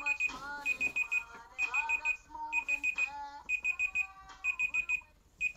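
Electronic alarm clock beeping: groups of about four quick, high beeps, repeating roughly once a second.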